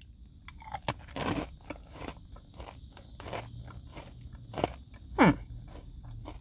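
Buc-ee's Beaver Nuggets, caramel-coated puffed corn, bitten and chewed close to the microphone: irregular crisp crunches throughout. A short falling vocal hum comes about five seconds in.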